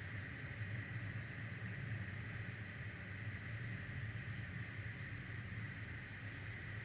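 Steady background noise from an outdoor nest-camera microphone: a constant low hum under an even hiss, with no distinct calls or knocks.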